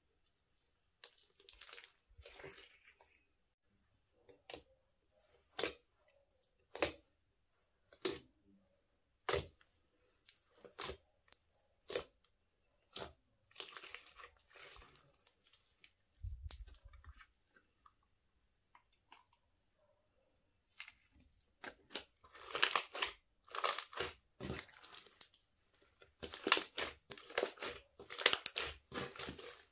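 Bead-filled glitter slime being poked, squeezed and stretched by hand: a string of sharp pops about once a second, a dull thump about halfway through, then dense crunching and crackling near the end.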